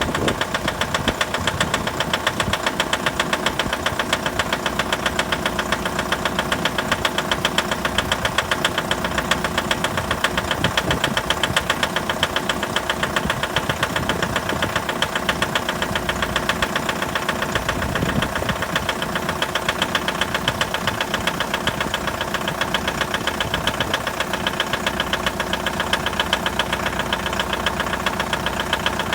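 Mitsubishi L200's 4D56 2.5-litre turbodiesel idling cold with a steady, rapid knocking clatter, the knock this engine makes when cold.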